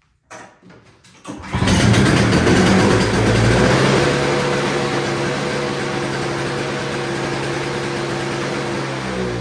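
Toro Snow Commander snowblower engine cranked briefly, catching about a second in and then running steadily and loudly. It now starts on fresh gasoline, which points to old gas as the likely reason it would not start.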